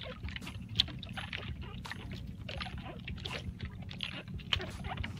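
Steady low rush of water and wind around a small outrigger fishing boat, with scattered clicks and knocks as a freshly caught red bigeye fish is handled on its hand line. A sharper knock comes about a second in.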